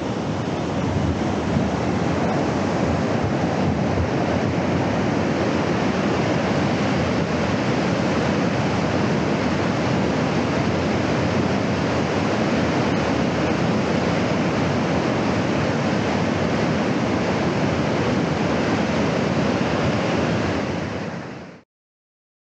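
River rapids in spring flood: a loud, steady rush of churning whitewater. It cuts off suddenly near the end.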